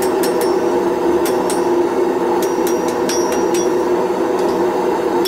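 Light hammer blows on a glowing 1 cm round steel bar on an anvil, about a dozen in uneven groups of two to four, each with a short high ring. Under them runs the forge's loud, steady rushing noise.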